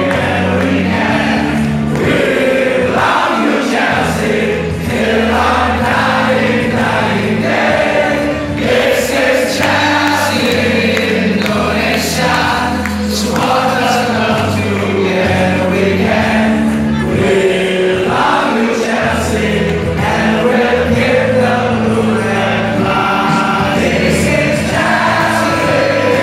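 A crowd of football supporters singing a chant together, many voices at once, over music with steady bass notes.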